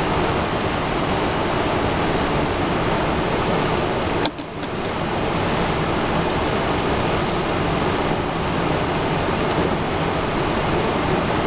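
Ohio River water rushing steadily through the open spillway gates of a navigation dam and churning in the tailwater below. A single sharp click with a momentary dip in the sound about four seconds in.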